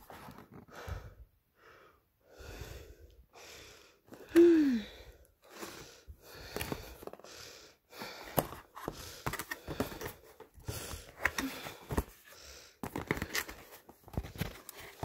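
Cardboard box holding a soccer ball being handled and opened: irregular rubbing and scraping, then a run of sharp clicks and knocks in the second half. A short falling squeak about four seconds in is the loudest sound.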